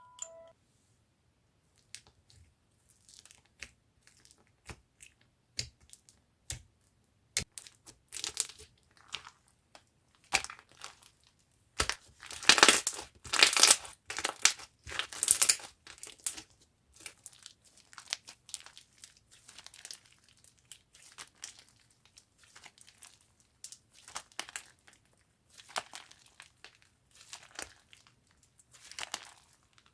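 Slime being squeezed and pressed by hand, making irregular crackling, crinkling pops, busiest and loudest around the middle.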